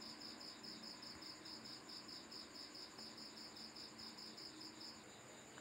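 Faint, steady chirping of crickets, an even high pulse of about five a second, over near silence.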